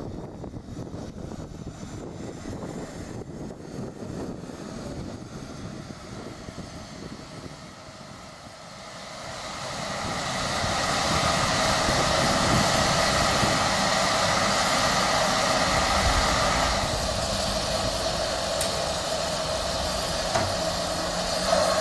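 Low rumbling noise, then from about halfway a loud steady hiss of escaping steam from a one-third-scale 15-inch-gauge 4-6-2 steam locomotive, with a few steady whistling tones in it. The higher part of the hiss drops away a few seconds before the end.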